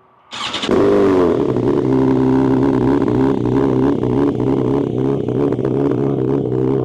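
BMW S1000XR inline-four motorcycle engine cold-starting through a full titanium Akrapovic exhaust with no dB-killer fitted. It fires almost at once, flares briefly with the pitch dropping, then settles into a steady, extremely loud fast idle.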